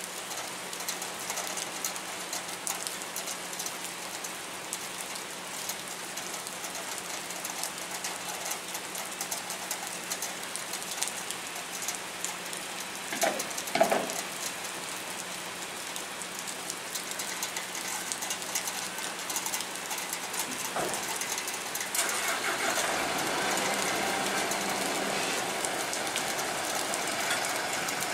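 Steady rain falling on a wet concrete pier, a dense patter of drops over a low steady hum. About 14 seconds in there is a brief louder sound, and from about 22 seconds in a truck's noise grows as it moves off from where it was parked.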